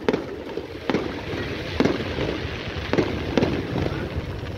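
Aerial fireworks bursting: a series of five sharp bangs, roughly a second apart, over a continuous crackling rumble.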